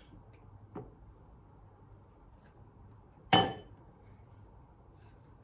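A single sharp clink of kitchenware knocking together about three seconds in, ringing briefly, after a fainter knock near the start.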